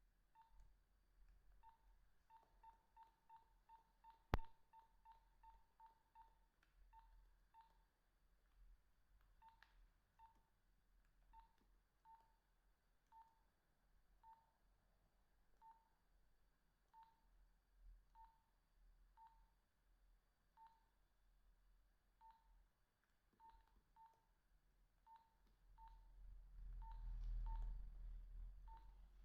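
Faint keypad beeps from a Nokia 2110i mobile phone as its buttons are pressed to browse the menu. Short single-pitched key tones come in quick runs at first, then about one a second. There is a sharp click about four seconds in, and a low rumble near the end.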